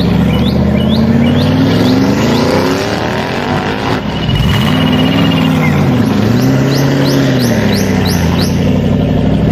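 A car engine revving, its pitch climbing and falling several times. Short high chirps recur over it, a string near the start and another from about six seconds in.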